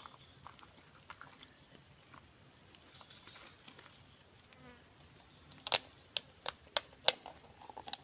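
A steady, high-pitched chorus of insects chirring, joined in the second half by about six sharp clicks or taps.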